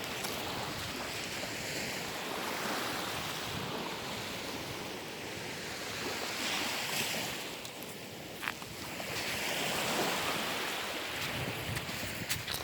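Sea surf washing onto the shore, swelling twice and falling back.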